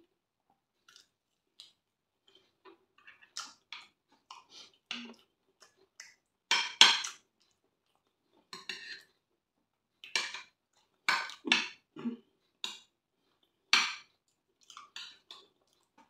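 Eating sounds: chewing, and a metal spoon scraping and clinking against a glass dish, in separate short strokes with quiet gaps between them. The loudest come a little before halfway and again between about ten and fourteen seconds in.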